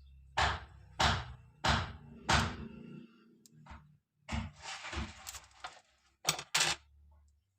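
Black insulating tape being pulled and pressed over a phone circuit board: four short scratchy pulls in the first couple of seconds, a longer rustle about halfway, and two sharp taps near the end.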